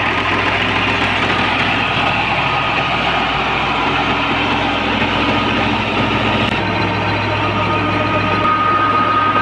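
New Holland 480S tractor's three-cylinder diesel engine running steadily under load, turning a power take-off shaft that drives a tube-well pump. A thin, steady high whine joins near the end.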